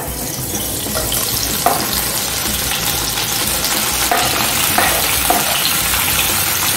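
Slices of Tuscan sausage sizzling as they hit hot olive oil in a nonstick pan. The frying hiss starts suddenly and runs steadily. A few light knocks come as the slices are scraped off a wooden cutting board with a wooden spoon.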